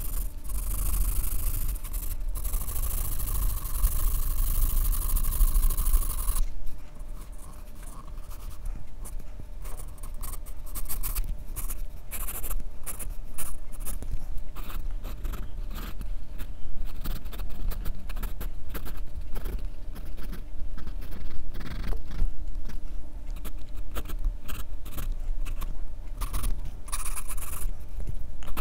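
Graphite pencil scratching on drawing paper. A continuous run of quick shading strokes lasts about six seconds, then it breaks into short, separate strokes.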